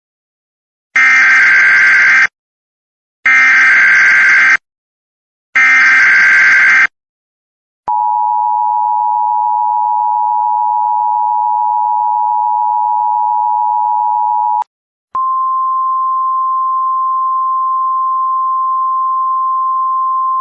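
Emergency Alert System signal: three harsh, buzzy bursts of the SAME digital header, then the two-tone attention signal held steady for about seven seconds. After a brief break, a single steady higher tone follows, the kind of 1050 Hz alert tone used on NOAA Weather Radio.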